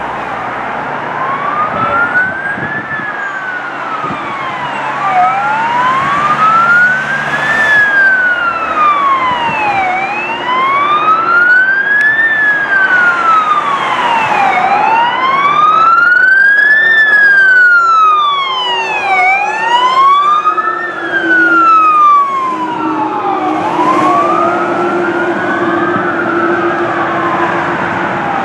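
Two fire-engine electronic sirens (Gamet 150N and PSS-200 modulators on Scania trucks) on the slow wail, each sweeping up and down about every four to five seconds, slightly out of step so their rises and falls cross. They grow louder as the trucks approach, with a steady low drone underneath in the second half.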